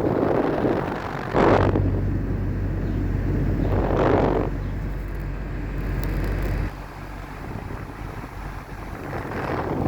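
Mastertech air conditioner outdoor unit running with a low steady hum that starts about a second in and cuts off suddenly a little past halfway. Gusts of wind on the microphone rise and fall over it.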